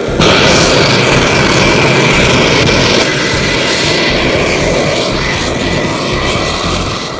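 A race vehicle's engine at full throttle, launching from a standing start on ice. It cuts in suddenly, stays loudest for about three seconds, then fades as the vehicle speeds away down the strip.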